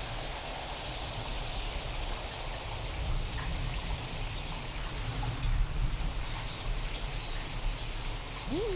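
Steady heavy rain, sound-designed to seem alien, hissing over a deep low rumble that swells briefly in the middle. Near the end a short pitched tone sweeps up and falls back.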